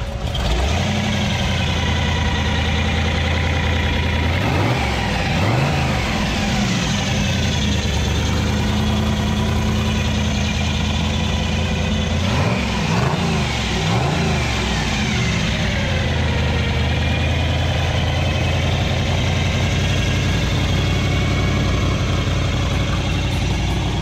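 A 402 cubic-inch big-block V8 in a hot-rodded 1928 Ford Model A roadster, idling with a deep steady rumble. The throttle is blipped twice about four seconds in, then a few more quick revs around the middle, each rising and falling back to idle.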